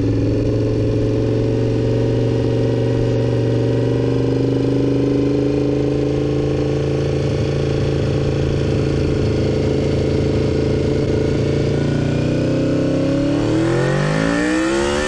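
1987 Honda VFR motorcycle's V4 engine running at a steady note with a slight slow fall in pitch, then rising in pitch about twelve seconds in as it revs up.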